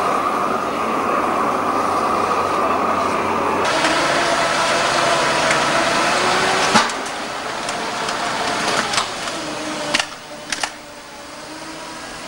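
A gas torch flame hissing steadily, then, after a sudden change, foundry machinery running with a faint whine and a few sharp knocks, quieter near the end.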